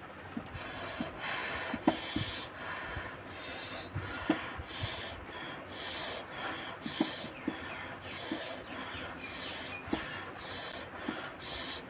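A person eating a hot mouthful of rice and curry, drawing and blowing air sharply through the mouth about once a second to cool it, with short wet chewing and lip-smack clicks in between.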